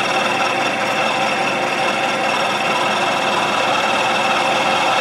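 Ajax milling machine running a 1-inch end mill that is being fed into the wall of a steel tube, cutting a notch. It makes a steady machining whine with several held pitches over a hiss of cutting noise.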